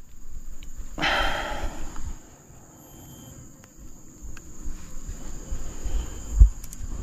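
A steady high-pitched insect drone, with a brief rustle about a second in and a low bump near the end from handling the fishing rod and line.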